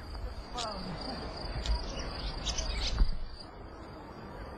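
Outdoor ambience: an insect trilling on one steady high note that stops about three and a half seconds in, with a few short bird chirps and a low rumble of wind on the microphone. A single sharp knock about three seconds in.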